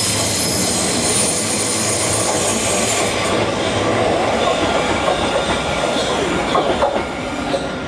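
Southeastern Class 375 Electrostar electric train running past, with a high-pitched motor whine that cuts off about three seconds in. After that comes a steady wheel-and-rail rumble, with a few sharp clicks near the end.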